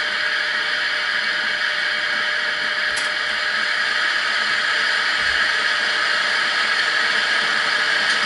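Steady electric-locomotive whirring hum of a Class 71, played by a MarWick Soundscape sound decoder through the small speaker of a stationary Hornby OO-scale model. It grows slightly louder about halfway through, with a faint click about three seconds in.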